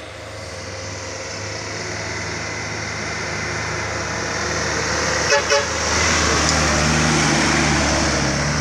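Heavily loaded medium truck approaching and passing close by, its engine growing steadily louder. Two short horn toots sound about five seconds in.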